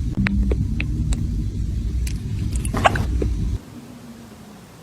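A kitten hiccuping once, a short sharp catch just under three seconds in, with a few fainter clicks before it. A steady low rumble runs beneath and cuts off suddenly shortly after the hiccup.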